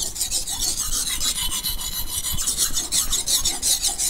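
Vanadis 8 steel golok blade being stroked rapidly back and forth on a wet Tamiang natural whetstone of about grade 400, steel rasping through a muddy slurry on the stone's face.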